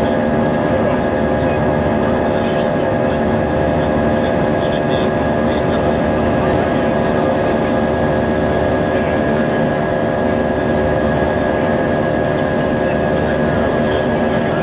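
Cabin noise of an Airbus A320 in its climb after takeoff: the jet engines and rushing air give a steady, loud drone with several steady whining tones from the engines laid over it.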